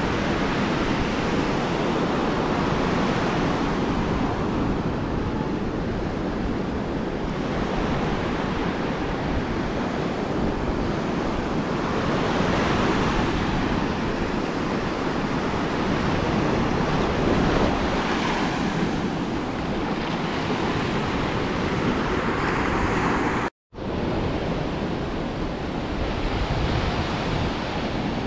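Ocean surf washing onto a beach, a steady roar that swells every few seconds as waves break, with wind rumbling on the microphone. The sound cuts out for an instant near the end.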